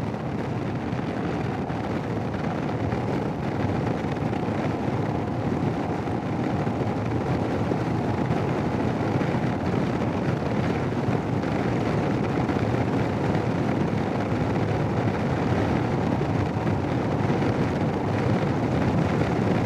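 Steady wind rushing over a motorcycle helmet headset's microphone while riding a Royal Enfield Himalayan, with vehicle road noise beneath it, growing slightly louder over time.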